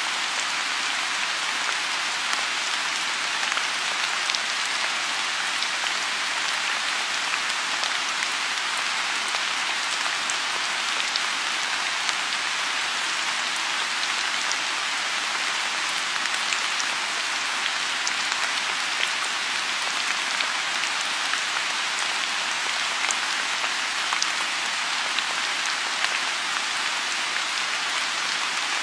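Steady rain falling on a lotus pond: an even, unbroken hiss with scattered sharp drop ticks.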